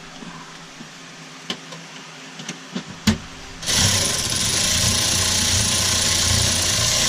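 A few light clicks, then about three and a half seconds in a power tool starts up and runs steadily, driving a bolt down on the Tesla Model 3's high-voltage battery penthouse lid. The tool sets the torque itself by the trigger.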